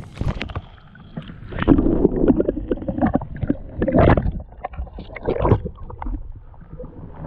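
Lake water splashing and sloshing in uneven bursts as a hand lowers a black crappie into the water and lets it go.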